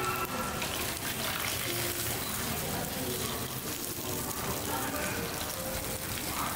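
Bánh xèo batter frying in hot oil in small pans on gas burners: a steady sizzle.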